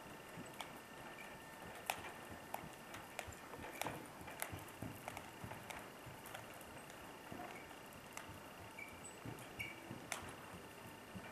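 Faint, irregular clicks and soft knocks from a pony being driven in a light two-wheeled cart: hoofbeats on dirt arena footing, with the cart and harness rattling.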